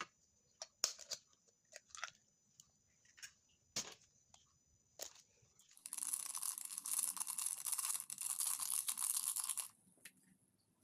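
Kitchen preparation sounds: scattered soft crackles and taps, then a steady rushing noise lasting about four seconds from about six seconds in.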